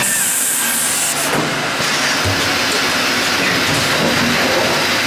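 Steady hiss and running noise of an automatic bag filling and labelling line's machinery, with a brighter, sharper hiss over the first second or so.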